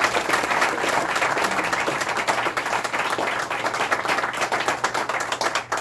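A small group applauding: many quick hand claps mingling into a steady patter that thins out near the end.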